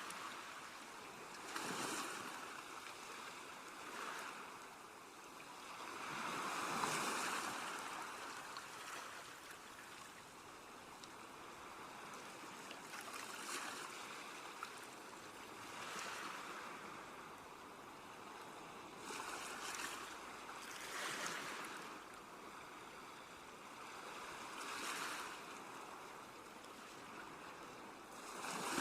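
Sea waves breaking and washing on a shore, rising in a series of swells every few seconds, the loudest about seven seconds in.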